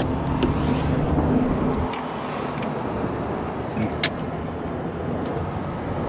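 Steady outdoor noise of road traffic, with a faint steady hum in the first two seconds and a couple of sharp clicks, one at the start and one about four seconds in.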